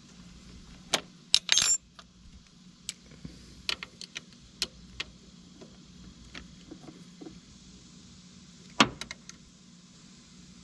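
Hand tools and small metal engine parts clinking and clicking: scattered sharp knocks, a short ringing jangle about a second and a half in and a louder click near the end, over a faint steady hum.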